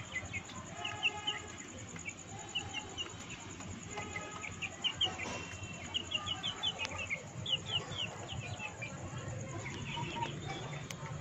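Young chickens peeping in short runs of three to five quick high notes, again and again.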